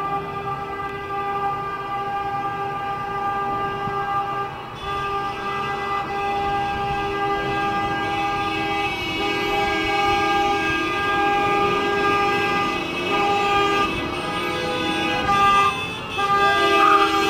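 Many car horns honking at once in a celebratory motorcade, long overlapping blasts held with hardly a break over the noise of passing cars, louder near the end.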